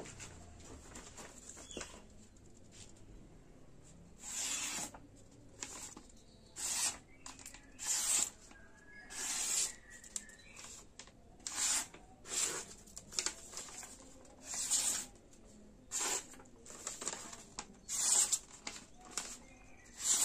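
A freshly sharpened knife blade of bearing steel slicing through a sheet of paper as a sharpness test. About a dozen short paper-cutting strokes, roughly one a second, begin about four seconds in.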